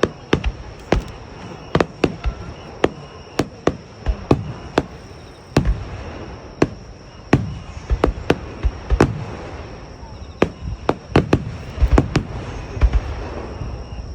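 Aerial firework shells bursting in quick succession in a starmine barrage: sharp bangs at irregular intervals, a few per second, some followed by a low rumble.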